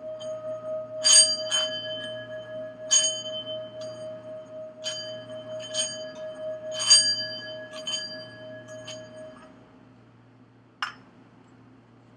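A singing bowl rings with one steady, wavering tone that fades out about three quarters of the way through. About seven bright strikes of a small bell sound over it at irregular intervals during the first eight seconds. A single click follows near the end.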